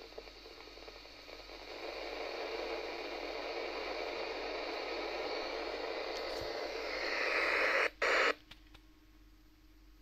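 Yaesu transceiver on 143.625 MHz FM giving out steady hiss from a weak, fading signal, with no voices. The hiss swells and grows louder, then cuts off abruptly about eight seconds in, with one short burst after it, leaving only a faint steady low tone.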